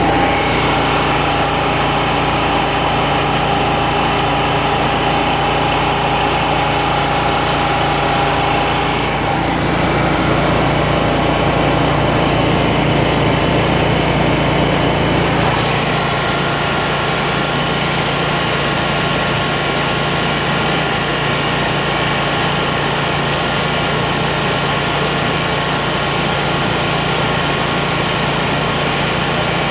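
Kubota Z726X zero-turn's Kawasaki FX801 V-twin engine running steadily at high idle while both hydrostatic transaxles drive forward at full stroke, as part of purging air from the fresh hydro fluid. The hum shifts slightly in tone about nine and sixteen seconds in.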